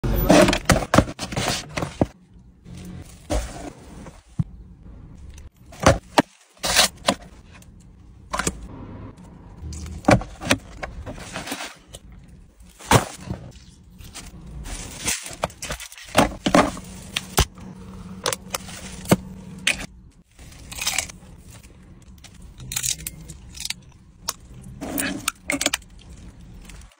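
Close-up eating sounds: mussel shells clicking and cracking as they are pulled apart by hand, with irregular crunches and rustles of paper and packaging.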